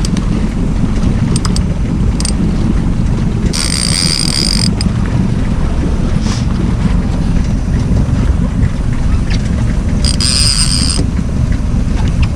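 Boat motor running steadily under a low rumble of wind on the microphone. Two short high-pitched whirring sounds, each about a second long, come about four and ten seconds in.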